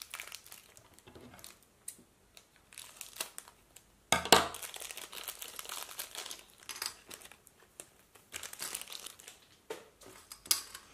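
A small plastic packet being torn open and crinkled by hand, in irregular crackles, with one loud sudden noise about four seconds in.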